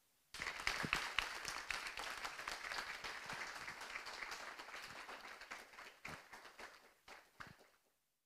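Audience applauding: dense clapping starts right away, dies down gradually, and ends in a few scattered single claps.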